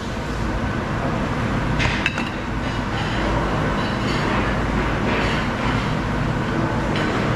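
Steady rumble of a busy commercial kitchen, with a few clinks and knocks of china plates and metal bowls as plated rice is set down on a plastic serving cart, most clearly about two seconds in.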